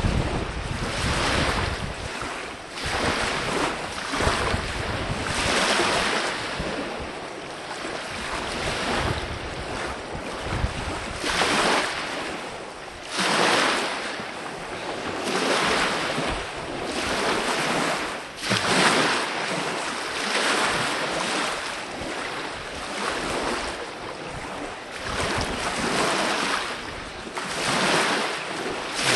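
Small lake waves washing in close by, one swell of hiss about every two seconds. Wind rumbles on the microphone at first.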